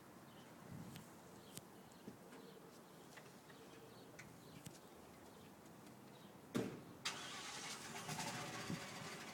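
A quiet street background with faint scattered clicks. About two-thirds of the way in comes a sudden thump, followed by a louder, steady vehicle engine sound with a hiss.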